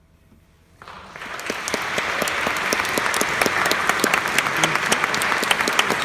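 Concert-hall audience applauding at the end of a piece: quiet at first, then clapping breaks out under a second in, builds quickly and holds steady.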